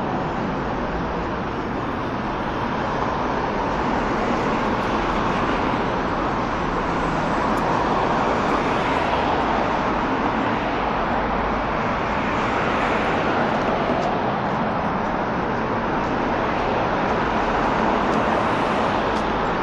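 Steady traffic on a busy city street: passing cars running past with tyre noise, growing a little louder a few seconds in.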